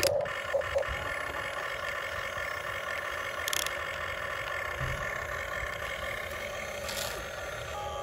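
Huina remote-control excavator running steadily as its boom and arm move, giving an even motor whine. Two brief clicks and a low knock sound partway through.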